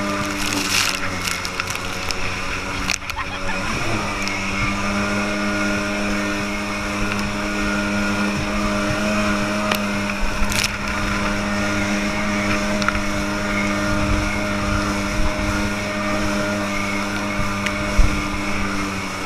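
Kawasaki JetMate jet boat's two-stroke engine running at steady high revs under way, with water spray hissing along the hull. The engine note dips and recovers about three to four seconds in.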